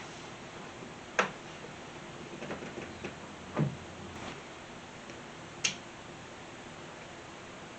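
A few scattered sharp clicks and one duller knock over a steady faint hiss, with no speech.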